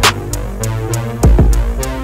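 Electronic background music with a steady drum-machine beat: deep kick drums under a quick, even run of hi-hat ticks.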